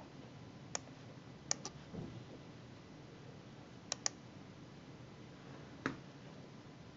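A few faint, sharp clicks at a computer, some in quick pairs, like mouse clicks or key presses, over a quiet room background.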